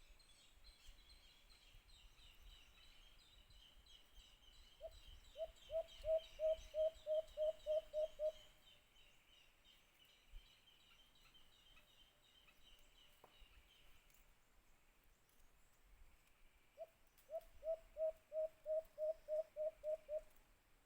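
White-eared brown dove calling: two runs of about a dozen quick, evenly spaced coos, one about five seconds in and another near the end. A faint high chirring runs behind the first half and stops about two-thirds of the way through.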